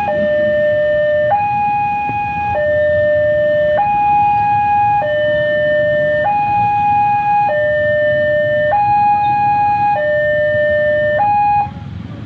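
Railway level-crossing warning siren sounding a two-tone hi-lo alarm, switching between a lower and a higher pitch about every 1.2 seconds; it cuts off near the end.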